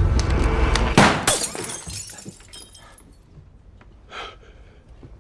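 A loud crash of something breaking about a second in, ending a loud rushing roar, then fading away. Near the end, a short sharp breath.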